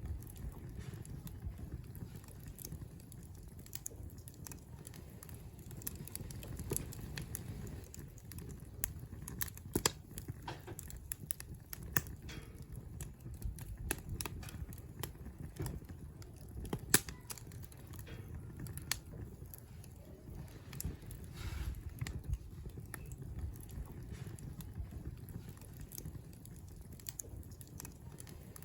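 Wood campfire burning: a steady low rumble with scattered crackling pops, a few louder snaps among them.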